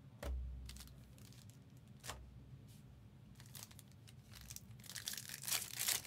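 A foil trading-card pack wrapper being torn open and crinkled, with crisp rustles of cards being handled. There is a denser patch of crinkling near the end, and two dull thumps against the table, one near the start and one about two seconds in.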